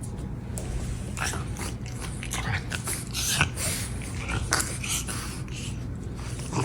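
French bulldog puppy with a cleft palate snorting and snuffling in short, irregular noisy bursts.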